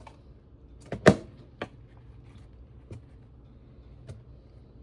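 A few sharp knocks and taps from cutting and handling watermelon pieces. The loudest is a double knock about a second in, with single fainter taps after it.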